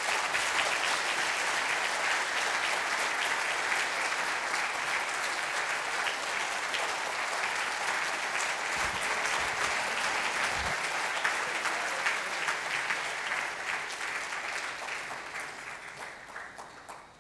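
A large audience clapping steadily, dying away near the end.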